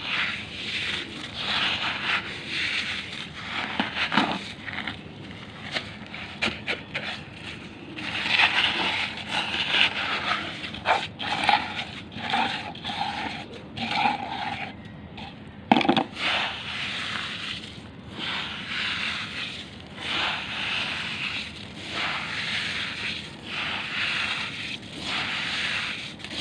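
Damp crushed charcoal being squeezed and crumbled by hand: gritty crunching and scraping in repeated handfuls, about one every second, with a few sharper cracks.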